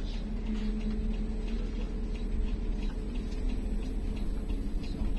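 Intercity bus's diesel engine running at low, steady revs, a constant low hum heard from inside the passenger cabin.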